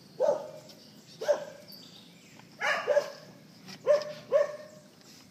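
Dog barking: about six short, sharp barks, some single and some in quick pairs.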